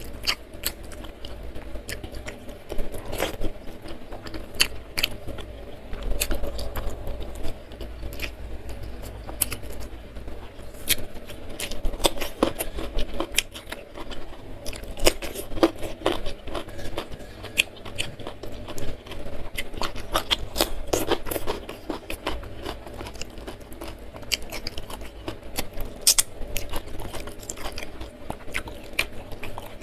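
Close-miked eating sounds: a person chewing fried chicken and rice eaten by hand, with many irregular sharp clicks and crunches from the mouth.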